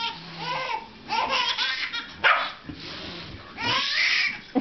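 A dog barking in repeated short barks and yips, mixed with a baby's giggling laughter; the loudest bursts come about two seconds in and again near the end.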